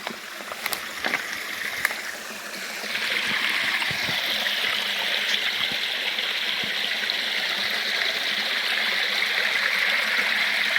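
Natural spring water flowing in a steady rushing trickle, which grows louder about three seconds in. A few sharp clicks come in the first two seconds.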